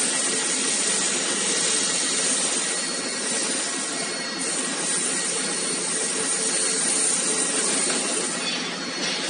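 Flatbed wrecker's hydraulic rear underlift arm extending: a steady hiss with a thin whine from the hydraulic system. It thins briefly about three seconds in and eases off near the end.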